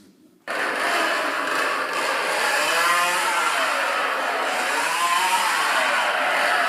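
Recorded chainsaw sound played loudly through a toy chainsaw prop's built-in computer speakers. It starts abruptly about half a second in and runs on steadily, with a couple of rising-and-falling revs.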